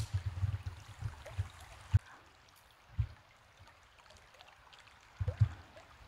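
Faint trickle of a shallow forest creek, with gusts of wind buffeting the microphone in low rumbles and thumps, heaviest in the first second and again near the end.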